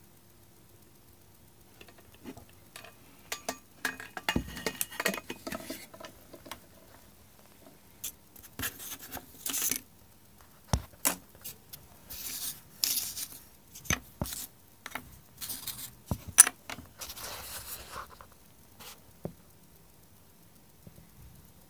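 Irregular clicking, scraping and clattering of small hard objects being handled, in uneven bursts that fade out a couple of seconds before the end; no motor is running.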